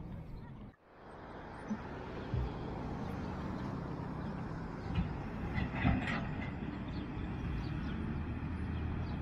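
Steady wind and road rumble on the microphone of a camera carried on a moving bicycle. The sound briefly drops out about a second in, and a few light knocks and rattles come around five to six seconds in.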